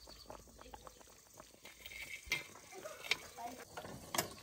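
Cooking juices bubbling in an open cast-iron Dutch oven with a whole chicken, a run of small crackles and pops with a few louder ones, and a sharp click near the end.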